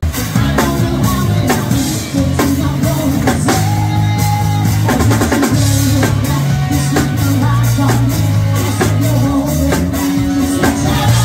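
Live band playing loud pop-rock: a woman singing into a microphone over a drum kit with a steady beat, bass and electric guitar, amplified through the PA.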